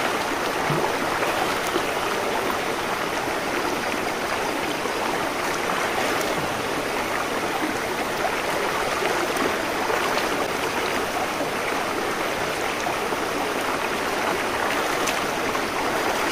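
Shallow rocky river rushing steadily over and between boulders.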